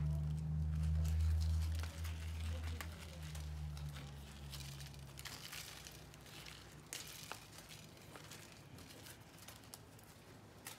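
Dried guajillo chile pods crackling and tearing as they are pulled apart by hand, their stems and seeds broken off, in scattered crisp crinkles. A steady low hum underneath fades away over the first few seconds.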